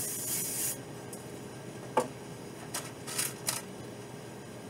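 Rummaging and handling noise from small hard objects: a short rustle at the start, a sharp click about two seconds in, then three brief rustles.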